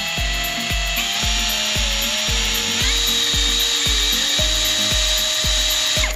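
Nanwei cordless impact wrench running free with no load, its high motor whine stepping up in pitch to top speed about three seconds in, then cutting off sharply near the end. Background music with a steady beat plays underneath.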